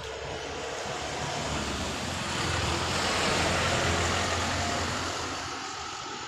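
A road vehicle passing by: its engine and tyre noise swells to a peak midway, then fades away.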